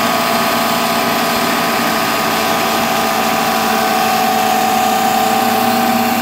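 Sun distributor tester's electric drive motor spinning a 1967 Oldsmobile 442 distributor at a steady speed: a continuous machine whine with several steady tones.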